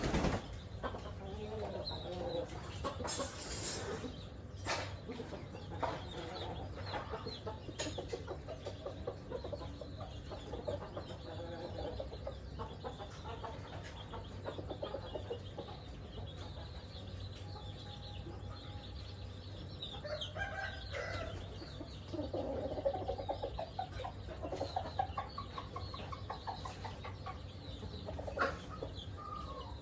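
Chickens clucking, with hens and chicks calling in many short notes and a rooster crowing.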